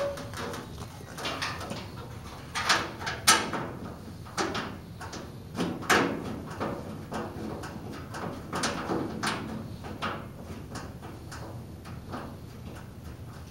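Painted steel cabinet door panel being handled, slid and pushed back into a laboratory sink-base cabinet: a run of metal clicks, knocks and short scrapes, the loudest about three and six seconds in.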